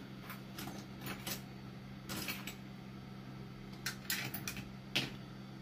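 Light metallic clicks and clinks of small hand tools being handled on a repair bench, scattered irregularly, over a steady low hum.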